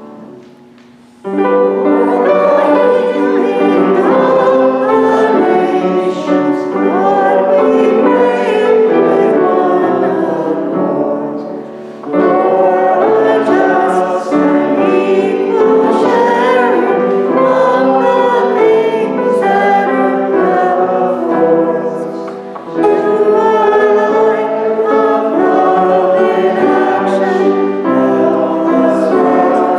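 Church choir singing a hymn in several voices, starting about a second in, with two short breaths between phrases.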